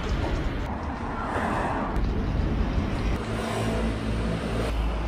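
Wind rumbling on the microphone over steady outdoor street noise, with a faint low hum coming in about three seconds in.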